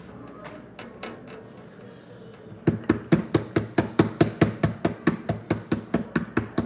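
Rapid, evenly spaced knocks, about five a second, beginning a little under three seconds in.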